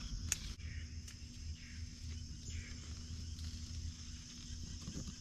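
A steady, high-pitched insect chorus over a low rumble, with a couple of faint clicks in the first second or so.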